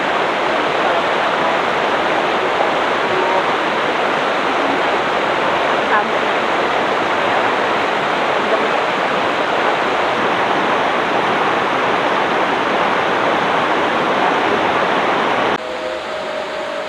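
River water rushing in a steady, loud, even stream. Near the end the rushing drops in level and a faint steady tone comes in.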